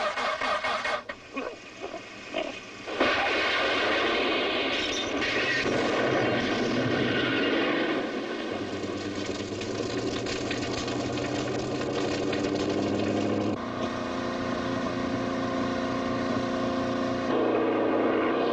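Car engines running hard in a film car chase, with a broken, uneven start before a steady engine drone sets in about three seconds in. The engine note shifts abruptly twice near the end.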